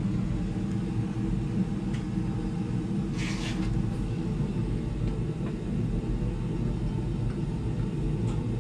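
Electric motor of a 6-inch Covington combination lapidary cabbing machine running steadily, spinning its diamond grinding wheels, with a short hiss about three seconds in.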